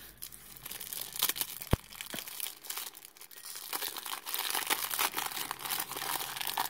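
Foil-lined wrapper of a 1991 Topps baseball card pack crinkling and tearing as it is pulled open by hand, the crackle growing busier and louder in the second half. A single sharp knock a little under two seconds in.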